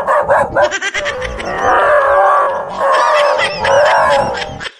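Dog yelping and squealing in fright at a fake tiger, a rapid string of high, wavering cries.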